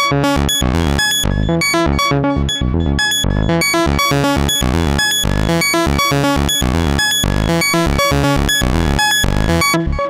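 Roland SH-101 analog monophonic synthesizer playing a fast sixteenth-note sequence, with tape echo and plate reverb on it. The notes run on evenly, and the brightness of the tone shifts as the sequence goes.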